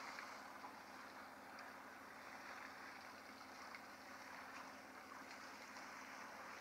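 Near silence: a faint, even hiss of outdoor background ambience.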